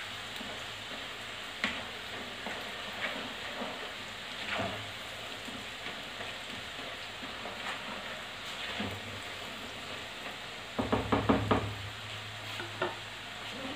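Namak pare dough strips deep-frying in hot oil in a kadai, giving a steady sizzle. A slotted spatula stirs them, scraping and tapping the pan, and a quick run of knocks about 11 seconds in is the loudest part.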